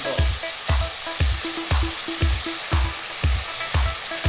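Eggs and soy sauce sizzling steadily in a frying pan. Background music with a steady thumping beat, about two beats a second, plays over the sizzle.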